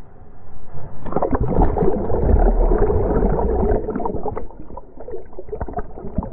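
A breaking ocean wave and its whitewater wash over an action camera held in the surf. A deep, muffled rush of churning water builds about a second in while the camera is submerged, then turns to choppy splashing and bubbling as it comes back to the surface.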